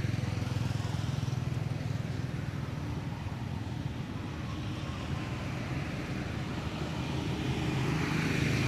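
Road traffic of motorbikes and a car: a steady low drone with hiss, growing louder near the end as a vehicle comes closer.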